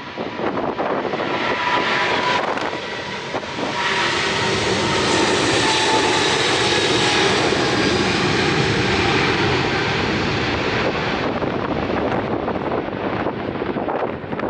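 Airliner engines passing close by, a rushing roar with a whine that swells to a peak midway and then eases off.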